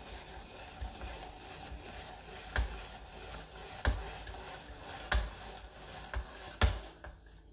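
Hand-cranked veggie spiralizer cutting a zucchini into noodles: a steady scraping rasp with a sharper click every second or so, stopping shortly before the end.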